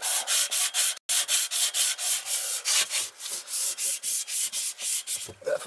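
Quick back-and-forth rubbing strokes, about five a second, as the end of a copper water pipe is scrubbed by hand, cleaning it for a compression fitting. The strokes break off briefly about a second in.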